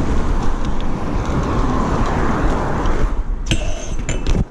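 A BMX bike rolling over brick paving, heard from a handlebar-mounted camera as a steady rumble of tyre noise and wind on the microphone. Near the end comes a quick series of sharp metallic clinks from the bike.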